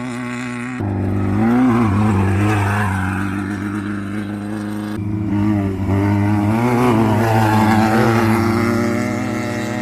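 Off-road race vehicle engine running hard, revving up and down with the throttle. It jumps suddenly louder about a second in and again about five seconds in.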